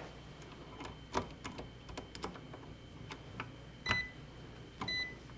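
Two short, high electronic beeps from a Fieldpiece SC440 clamp meter, one about four seconds in and another a second later. Under them are faint scattered clicks and rustles of the test leads being handled as a voltage reading is set up.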